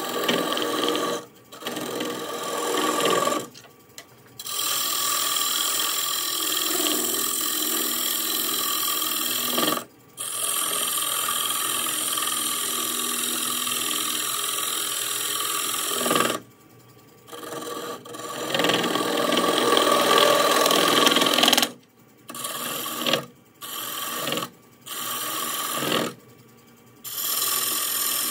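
Gouge cutting into a walnut and cherry bowl blank spinning on a wood lathe: a steady scraping of the cut with a faint whine under it, breaking off abruptly several times and starting again.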